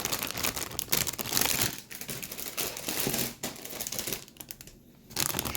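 Plastic bags holding Gunpla model-kit part runners crinkling as they are handled, with a quieter spell near the end.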